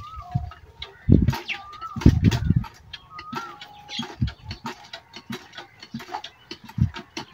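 Village hand pump being worked by hand for a bath: several low thuds and water splashing with small clicks and drips. Birds call from the trees with short whistled notes.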